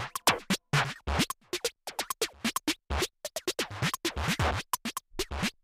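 Background electronic music in a rapid, choppy pattern of short stuttering bursts with scratch-like effects.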